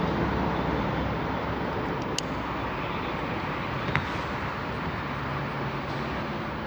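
Steady rumbling background noise, broken by a sharp high click about two seconds in and another short sharp click about four seconds in.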